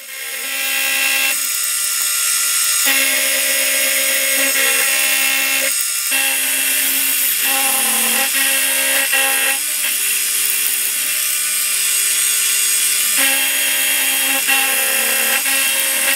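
End mill on a Warco milling machine cutting a mild steel block: a steady cutting noise with several ringing tones that shift every second or two as the cut goes on.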